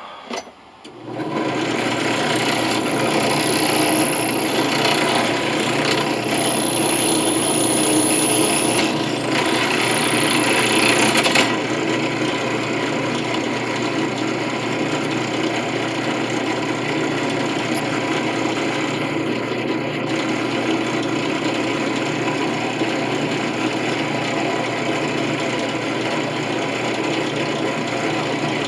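A power tool runs steadily under load, with a harsh rasping scrape as it works metal. A bright high hiss eases off about eleven seconds in, and the tool keeps running.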